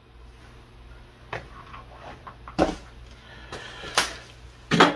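A handful of separate knocks and bumps, roughly a second apart, the strongest about four seconds in and just before the end, over a low steady hum: someone moving about at a workbench and handling things on it.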